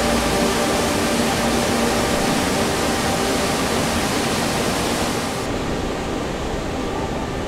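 Waterfall: the steady rush of water falling onto rocks, with the highest part of the hiss dropping away about five and a half seconds in.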